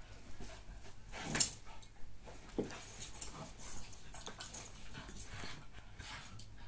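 A Sprocker puppy and another dog play-fighting: a run of scuffles and short dog noises, loudest about a second and a half in.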